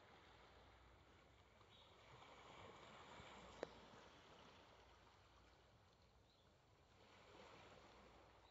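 Near silence: a faint wash of small waves lapping at the shore, swelling gently twice, with a single short click about three and a half seconds in.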